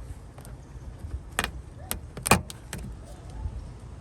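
A handful of sharp plastic clicks and knocks as car trim or light-housing parts are lined up and pressed back into place, the loudest about two and a quarter seconds in.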